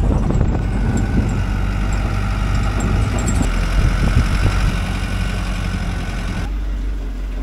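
Engine of an open-sided passenger truck running as it drives along a dirt road. About six and a half seconds in, the sound changes abruptly to a lower, steadier engine hum.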